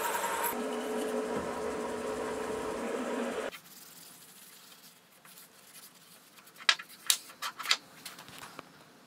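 Sieg X2.7L mill motor running as a drill bit cuts into an aluminium block, a steady machine sound with a few held tones that stops abruptly about three and a half seconds in. Then faint rubbing of a cloth on the block, and a few sharp knocks of the aluminium block handled on a wooden bench.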